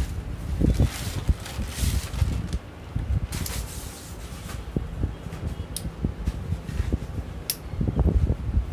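Aluminium tripod being handled as its legs are adjusted: rustling, and two short sharp clicks in the second half, over a steady low rumble.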